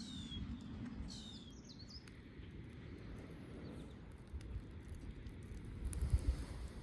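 A bird giving a few short, high calls that slide downward in pitch during the first two seconds, over a steady low outdoor rumble.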